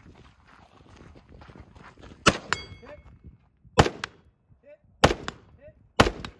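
Four rifle shots fired from the prone position at distant steel targets, spaced about a second to a second and a half apart, starting a couple of seconds in. After the first shot there is a short high metallic ringing.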